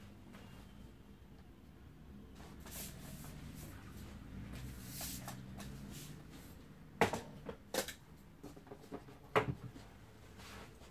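Plastic parts of a Beko stick vacuum cleaner being handled, with faint rustling and then a few sharp clicks and knocks in the second half.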